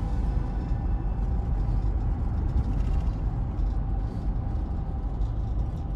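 Steady low rumble of road and engine noise inside a moving camping car's cab as it drives at speed.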